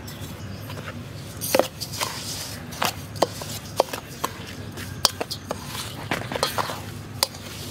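A metal spoon stirring dry cake mix (flour, cocoa powder and sugar) in a stainless steel bowl, with a soft scraping and irregular sharp clinks, some ringing briefly, as the spoon knocks the bowl, starting about a second and a half in.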